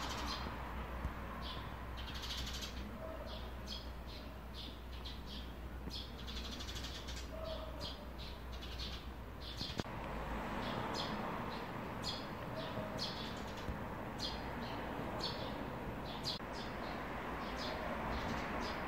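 Eurasian tree sparrows chirping: many short, high chirps, irregular and often several a second, over a steady low background rumble.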